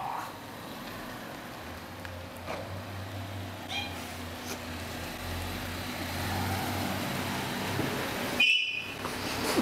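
A car engine running steadily with a low hum. Two short high-pitched cries stand over it, one about four seconds in and a louder one near the end, which cuts off suddenly.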